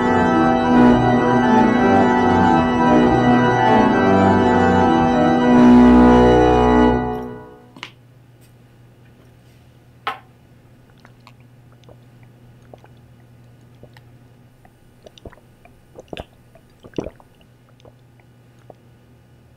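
Music of loud held organ chords that swell and then stop about seven and a half seconds in. After that, a low steady hum with a few faint clicks and knocks.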